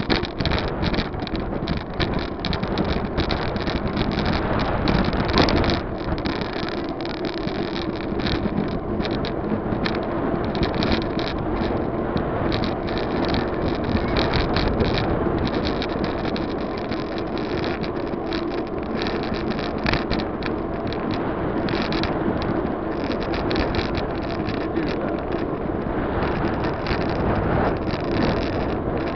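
Wind buffeting the microphone of a bicycle-mounted camera while riding, a continuous rushing noise broken by frequent small knocks, with a steady hum underneath.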